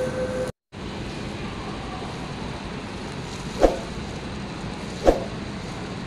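Steady background noise of an underground metro station platform, with a hum that cuts off at a brief dropout about half a second in. Two short knocks come about a second and a half apart.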